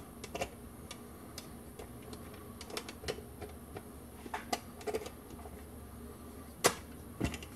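Scattered, irregular light clicks and taps of a small hex-drive ratchet and its sockets being handled and worked, with one sharper click near the end. The ratchet has failed and freewheels.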